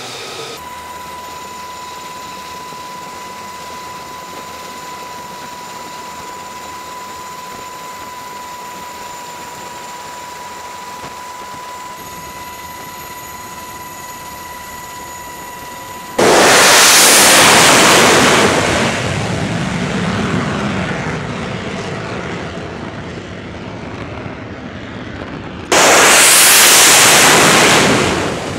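Jet engine noise from Lockheed Martin F-35C Lightning II jets on a carrier deck: a steady engine whine at a constant pitch over a background rush. Then twice a sudden very loud full-power jet blast, the first lasting a couple of seconds and fading off slowly, as an F-35C is catapulted off the deck.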